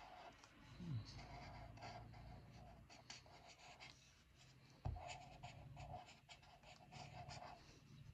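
Felt-tip marker drawing on paper: faint, short scratchy strokes as the lines are drawn, with a soft low knock about five seconds in.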